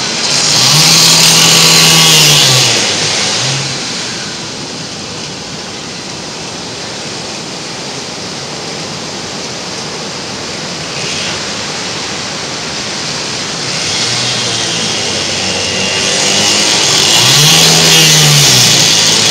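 Surf washing around the hull, with an engine revving up and back down twice, once near the start and once near the end.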